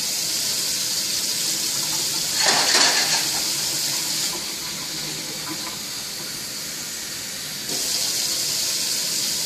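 Kitchen tap running, filling a measuring cup with water for soup stock. The rush is louder and splashier about two and a half seconds in, softer from about four seconds, and stronger again near the end.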